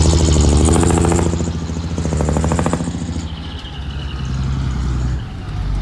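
Heavy diesel engine of earthmoving machinery running, louder and harder-working for the first few seconds, then easing to a lower, quieter run.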